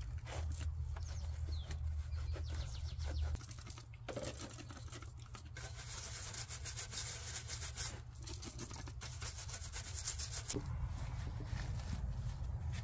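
Microfiber towel rubbing and scrubbing over grimy engine-bay parts, a continuous scratchy rustle. About halfway through come two hissing stretches, fitting the spray bottle squirting degreaser.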